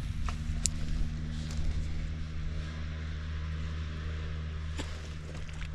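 Steady low hum of an engine running in the distance, with a few faint clicks.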